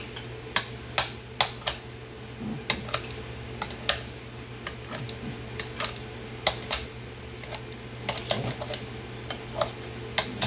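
Kitchen shears snipping cooked chicken thigh over a ceramic plate: sharp, irregular clicks of the blades snapping shut, about two a second.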